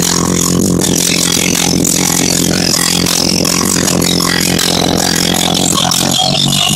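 Kicker L7 subwoofers playing bass-heavy music loud, with steady, sustained low bass notes.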